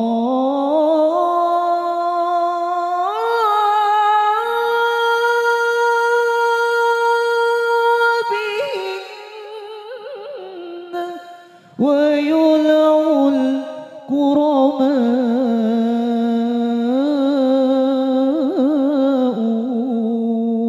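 Solo male voice singing a slow, drawn-out sholawat vocal line without drums, long held notes sliding from pitch to pitch. It falls away for a few seconds about nine seconds in, then resumes.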